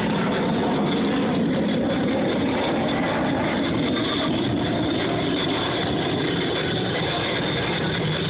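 F-22 Raptor's two Pratt & Whitney F119 turbofan engines running in flight, heard as a loud, steady jet rumble that holds level throughout.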